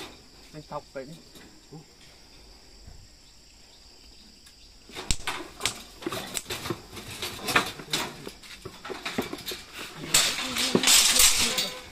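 Steel-bar pig cage on a trailer rattling and clanking as a pig is pushed into it: scattered knocks start about five seconds in, then a loud, dense rattle about ten seconds in.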